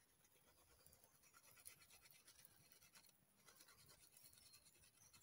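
Faint, rapid scratchy strokes of a flint flake scraping bark from a wooden stick.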